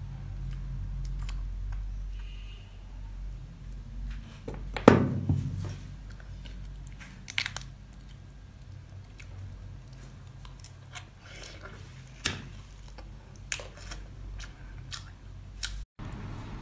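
Eating a cooked crab: the shell and legs pulled apart and the crab meat and roe chewed, heard as scattered crunches and clicks over a low steady hum, with one louder crunch about five seconds in.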